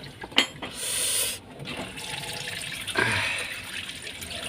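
Water running and splashing out of a clogged washing machine's drain, with a sharp knock about half a second in.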